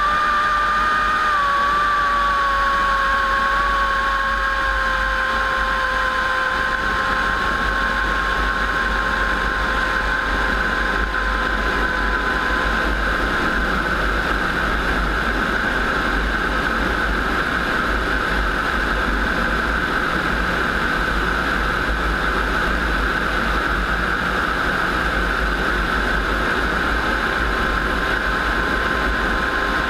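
Piston aircraft engine running steadily, its pitch settling slightly lower over the first several seconds and then holding.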